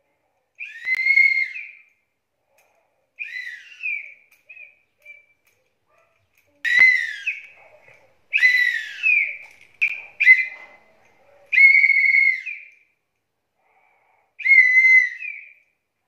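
A toddler blowing a small toy whistle in about a dozen separate short toots with pauses between. The pitch wavers and often drops as each breath runs out.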